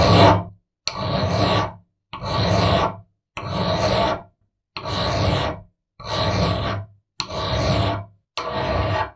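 Hand file rasping across the edge of a steel block, cutting a chamfer in steady strokes, about eight of them a little over a second apart. Each stroke carries a faint metallic ring.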